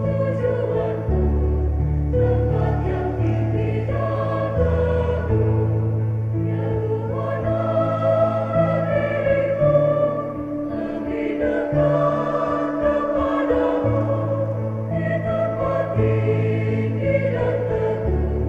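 A choir singing a hymn over held low accompaniment notes that change every second or two.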